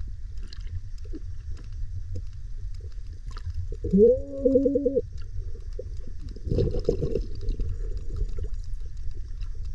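Underwater rumble of water moving around the camera as a snorkeller swims, with a muffled hooting tone that rises and then holds for about a second, roughly four seconds in. Faint scattered clicks run through it.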